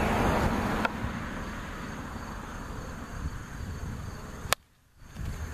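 A plastic wiffle ball bat hitting a wiffle ball: one sharp crack about four and a half seconds in, over steady cricket chirping. A low rumble fades out within the first second.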